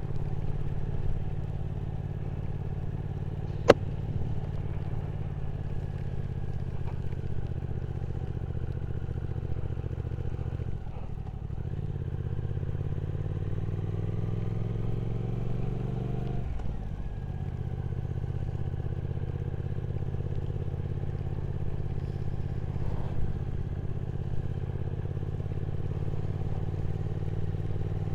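Motorcycle engine running under way at a steady pace. Past the middle the engine note dips, then rises in pitch for a few seconds and breaks for a gear change before settling again. There is a single sharp click a few seconds in.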